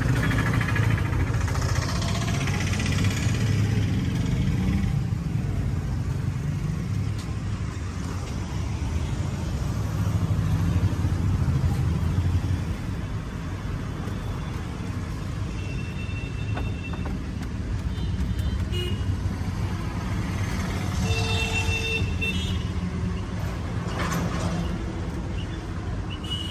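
Street traffic: vehicle engines rumbling past, with a few short horn toots in the second half.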